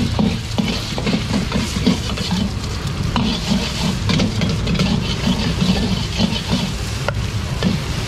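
Fried rice being stir-fried in a wok: a metal spatula scraping and tossing in quick, uneven strokes while the rice sizzles, over a steady low rumble.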